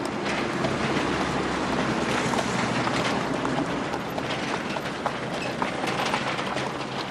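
Road traffic passing close by: engines and tyres running steadily, with scattered clicks and clatter.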